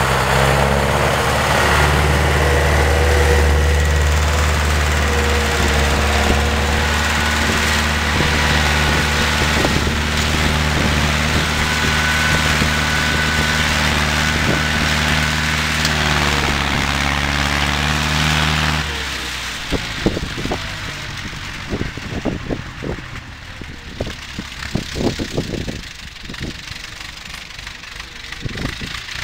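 Ursus C-360 tractor's four-cylinder diesel engine running steadily under load while pulling a cultivator through wet soil. About two-thirds of the way through the engine sound drops sharply, leaving a fainter running sound broken by irregular knocks and crackles.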